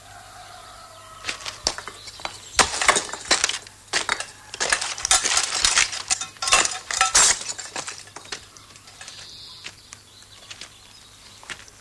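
A quick run of clinks and clattering knocks, hard objects striking one another, thickest between about two and seven and a half seconds in, then dying down.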